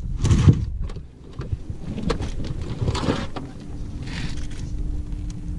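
Knocks and rustling of gear moving in an inflatable rubber boat over a low rumble. A steady hum comes in about three and a half seconds in.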